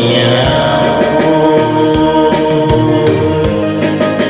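Karaoke backing track: electronic organ and keyboard notes held over a steady drum beat, with a falling synth swoosh at the start.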